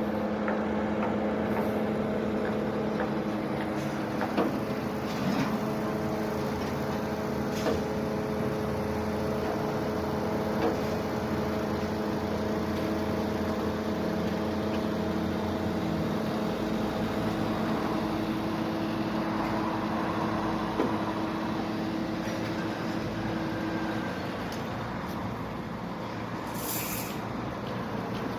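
Crane engine running steadily while the crane is worked, with a few short knocks; the engine note eases off near the end.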